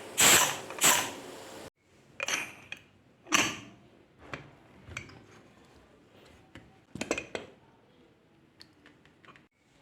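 Pressure cooker venting steam in three short, loud hissing spurts that cut off abruptly about a second and a half in, as the pressure is released. Scattered metallic clicks and knocks follow.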